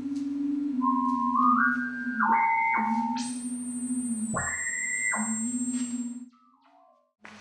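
Electronic sine-like tones from an interactive sound installation that responds to people's movements. A low electronic hum wavers slightly in pitch. Over it, clean higher tones step upward one after another, and a very high thin tone joins midway. All of it cuts out about six seconds in, and the tones return near the end.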